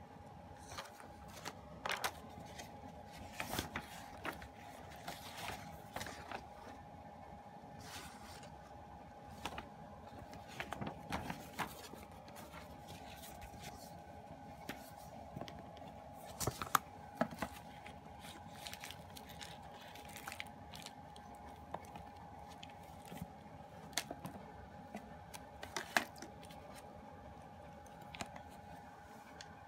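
Handling of a CD album and its packaging: photobook pages turned, plastic wrap rustled and card stock shifted, giving scattered light clicks, scrapes and rustles. A faint steady tone runs underneath.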